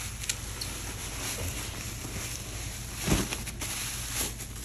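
Handling noise as a leather jacket is uncovered and lifted out of its box: rustling packaging with a few light clicks, and one dull bump about three seconds in.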